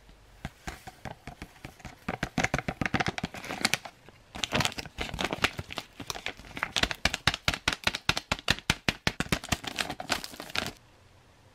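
Stiff foil-laminate ration pouch crinkling and crackling in the hands as it is tipped and shaken to pour powdered drink mix into a glass. The rapid crackling goes on in two stretches with a short pause between them, and stops suddenly near the end.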